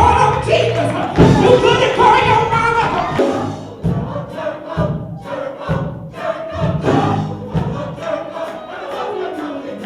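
Gospel choir singing with band accompaniment and a steady beat, loud for the first few seconds and then quieter.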